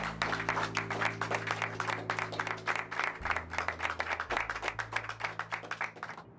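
A small group applauding, many quick irregular claps, over background music of held low notes that shift twice. The clapping and the music stop abruptly near the end.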